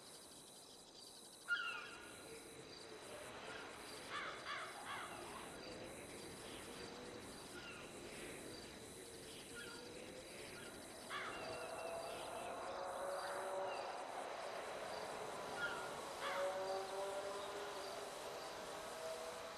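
Outdoor ambience: scattered short bird calls over a steady high thin whine and background noise, with a wavering lower tone building up about halfway through.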